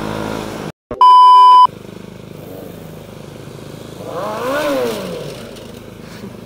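A loud, steady censor bleep lasting under a second, coming about a second in right after a brief dropout. Then a motorcycle engine runs steadily while riding, with one rise and fall in pitch around the middle.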